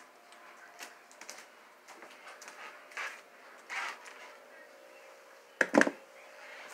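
A spoon scraping and tapping canned cat food into a dish: scattered light clicks and knocks, with a loud double clack about five and a half seconds in.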